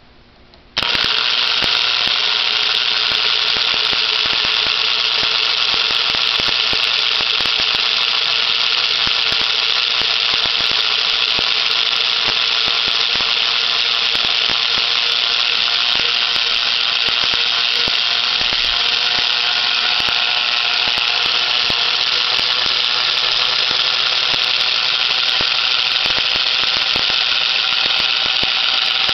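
Lionel No. 6110 postwar toy steam locomotive's electric motor and gear drive running. It switches on abruptly about a second in, then keeps a steady whir with a fine clicking through it.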